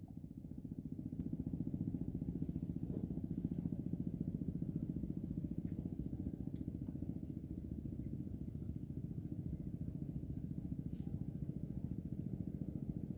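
A small engine running steadily with a low, rapid throb, growing louder over the first two seconds and then holding.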